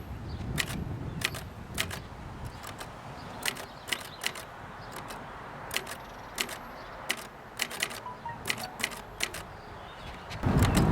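Unhurried typing on a Facit 1620 manual typewriter, about two sharp key strikes a second, its escapement, cleaned and oiled after sticking, letting the carriage step along. A louder, longer mechanical noise comes in near the end.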